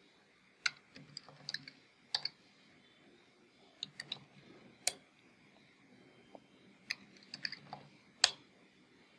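Computer keyboard being typed on: about a dozen sharp key clicks coming singly and in small clusters, with short pauses between.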